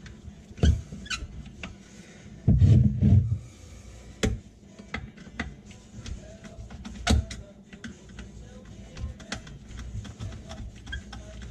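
Small screwdriver turning and working loose a screw on a garbage disposal under a kitchen sink, with scattered metal clicks and taps of tool handling. A louder dull thump comes about two and a half seconds in.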